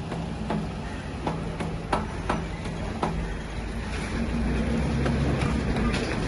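Single-cylinder diesel generator engine being hand-crank started: a low steady drone with several sharp knocks in the first three seconds, growing louder from about four seconds in as the engine picks up.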